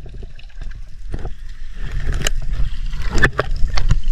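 Muffled water sound from a camera underwater and at the surface: a low steady rumble of moving water with scattered sharp clicks and splashes, the loudest around two and three seconds in.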